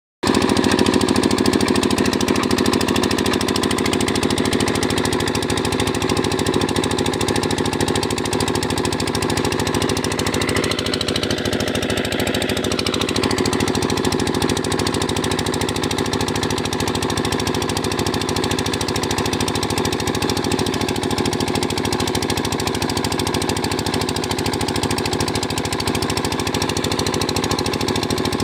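Borewell drilling rig running steadily under power, its engine giving a dense, rapid pounding.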